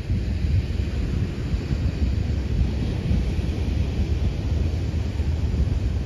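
Wind buffeting the microphone as a loud, fluttering low rumble, over a faint steady hiss of surf breaking on the beach.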